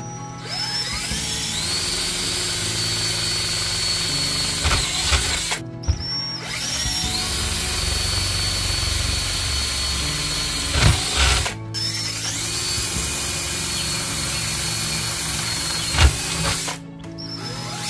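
Cordless drill boring three rivet holes through a black plate one after another. Each run lasts about five seconds: the motor whine rises as it spins up, holds steady, and ends in a short rattle and a brief stop before the next hole.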